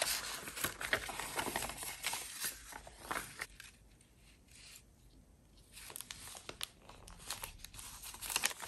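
Paper rustling and crinkling as journal pages, a translucent paper flap and a paper card are handled, in short scattered rubs and clicks. It goes quieter for a couple of seconds midway, then the rustling picks up again.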